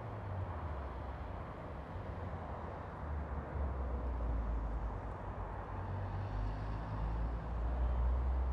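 Steady low rumble with a hiss over it, cutting in abruptly and swelling a little partway through, of the kind a running vehicle makes.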